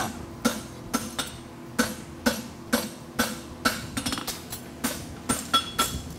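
Farrier's hammer striking a red-hot steel horseshoe on the anvil horn, about two blows a second, each with a short metallic ring, bending the shoe's branch around the horn. The blows come quicker near the end.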